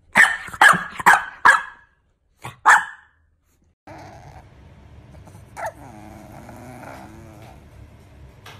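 French bulldog puppy barking: four quick, sharp barks, then two more after a short pause. After that only quiet room sound.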